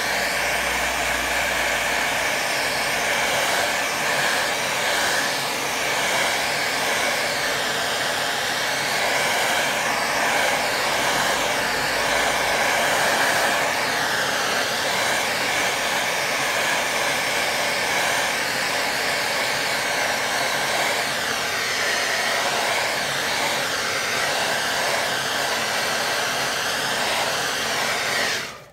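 Hair dryer blowing steadily over a wet watercolour painting to dry the paint, cutting off near the end.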